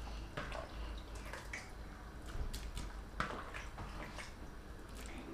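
Pieces of washed fish and stockfish being dropped one at a time into a pot of soup: a string of soft wet plops and drips, with a low steady hum underneath.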